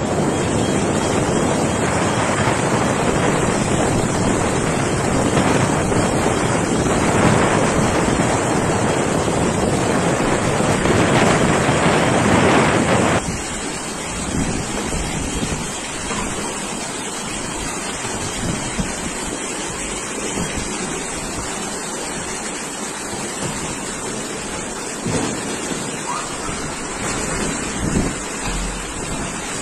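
Cyclone-force wind buffeting the microphone in heavy gusts. About thirteen seconds in it cuts off suddenly to a quieter, steady rushing of floodwater pouring over a low causeway, with occasional low thuds of gusts on the microphone.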